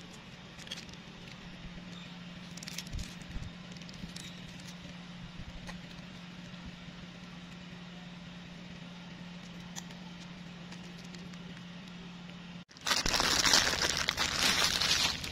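A plastic candy wrapper crinkling loudly for about two and a half seconds near the end, after a faint steady low hum with scattered light ticks.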